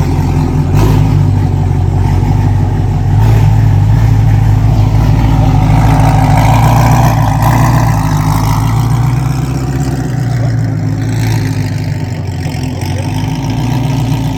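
Chevrolet Corvette C8's 6.2-litre V8 running steadily at low speed as the car is driven off, with a faint rising whine partway through.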